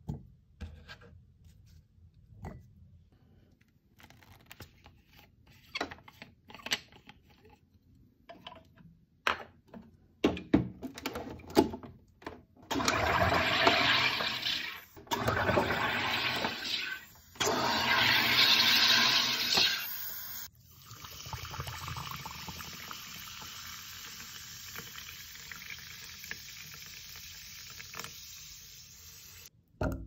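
SodaStream Terra carbonating a bottle of water: three loud hissing bursts of gas, each about two to three seconds long, as the top button is pressed, followed by a long, fainter, steady hiss. Before the bursts there are light clicks and knocks of handling.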